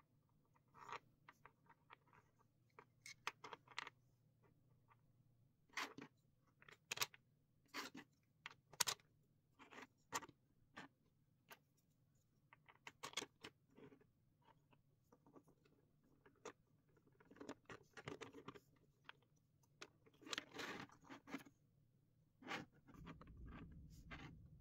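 3D-printed PLA parts being handled and fitted together: irregular sharp plastic clicks and taps as twist-locking pins are pushed through brackets and rods, with short scraping and rubbing, thickest about two-thirds of the way in.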